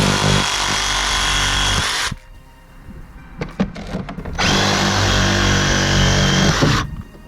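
A handheld power tool's motor runs steadily in two bursts of a couple of seconds each, with a short pause between them.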